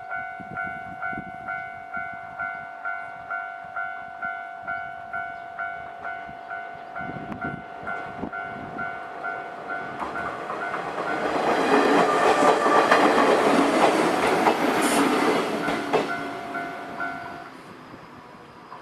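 Japanese level-crossing warning alarm ringing in a steady ding-ding rhythm, about two and a half strikes a second, while a train on the JR Wakayama Line approaches and passes over the crossing with wheels clattering on the rail joints, loudest about two-thirds through. The alarm stops shortly before the end as the train clears.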